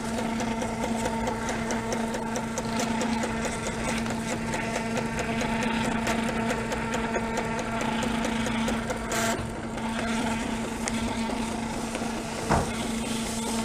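Smartmatic vote counting machine's built-in thermal printer running steadily as it feeds out a long election return printout, a steady hum with fine, fast ticking. A single short click near the end.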